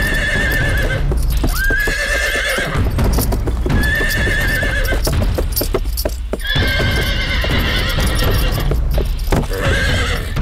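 A horse whinnying about five times, each call wavering in pitch, with hooves stamping and clattering between the calls. The horse is rearing and bucking to throw off its rider.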